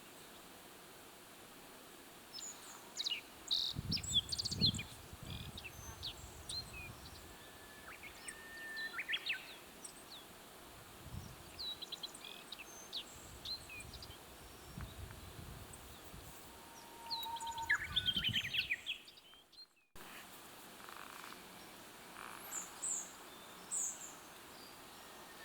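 Wild birds calling with many short, sharp chirps and call notes over a steady outdoor background, with some dull low thumps among them; the sound cuts out briefly about 20 seconds in, then a few more high calls follow.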